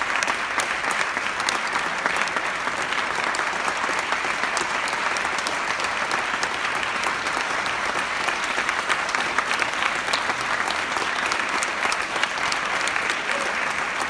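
Audience applauding steadily: many hands clapping together without a break.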